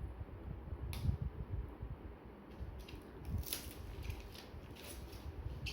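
Packaging being handled as a speaker is unboxed: a sharp knock about a second in, then a run of short rustles and scrapes from about halfway through, over low bumps.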